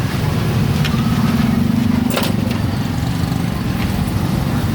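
An engine running steadily with a low hum, with a few sharp clicks or knocks, the loudest about two seconds in.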